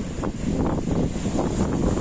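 Rough storm surf breaking over a sea wall and washing across a flooded shore, under heavy wind rumbling on the microphone.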